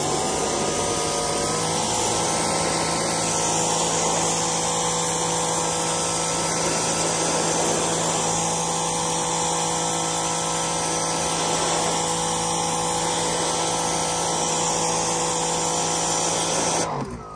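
Greenworks Pro 3000 psi brushless electric pressure washer running steadily, its pump humming under the hiss of the high-pressure water jet as it blasts old stain off wooden deck boards. It stops near the end.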